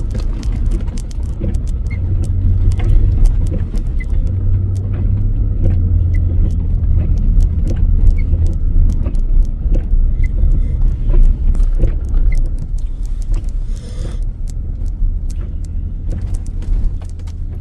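Car cabin noise while driving in deep snow: a steady low engine-and-tyre rumble, with many small clicks and rattles throughout.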